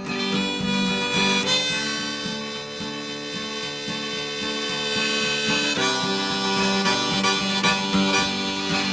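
Harmonica solo over strummed acoustic guitar, an instrumental break in a folk song. The harmonica holds long notes and shifts pitch twice.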